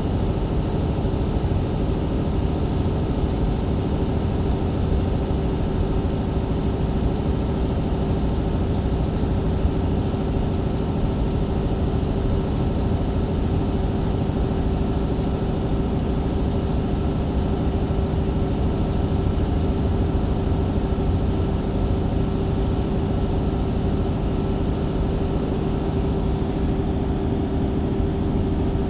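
Mercedes-Benz Citaro C2 LE hybrid bus with a Voith automatic gearbox running at a steady brisk speed on a country road, heard from inside the cabin: a constant drivetrain hum with a steady whine over low road rumble. A short high hiss comes near the end.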